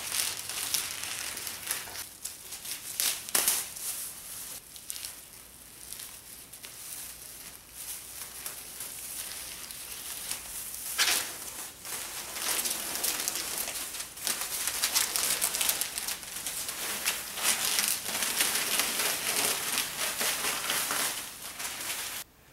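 Paper masking and plastic masking film being peeled off a freshly painted van and crumpled: continuous crinkling and rustling, with a few sharper crackles.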